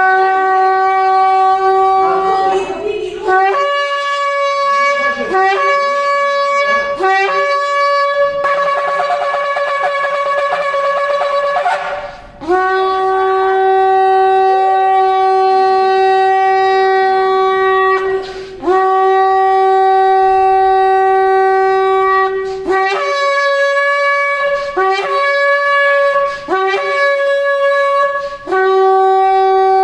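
A shofar being blown. It starts with a run of short blasts that jump between a low note and higher overblown notes, with a rapid fluttering stretch partway through. Then it settles into long held blasts on the low note, each broken off briefly before the next.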